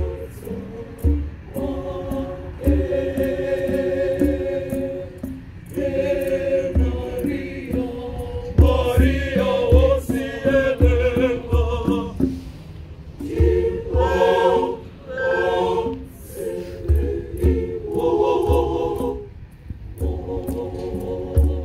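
Large mixed choir of women, men and children singing in harmony, in phrases with short breaks between them. Recurring low thumps sound underneath.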